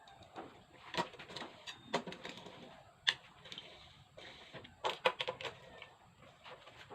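Irregular clicks and light knocks of hand tools and metal engine parts being handled during a motorcycle engine rebuild, a few sharper strikes standing out.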